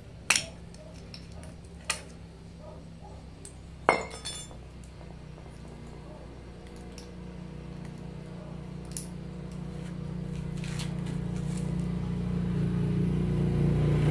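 Sharp metal clinks, three in the first four seconds, as the cut-off steel top cap of an inverter air-conditioner compressor is worked loose and set down on concrete. After that a low engine hum grows steadily louder toward the end.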